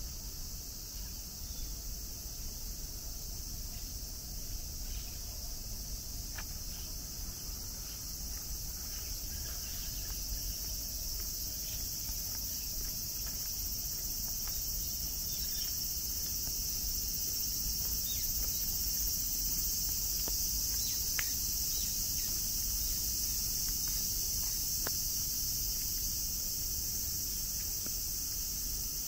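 Steady high-pitched chorus of insects over a low rumble, with a few faint ticks.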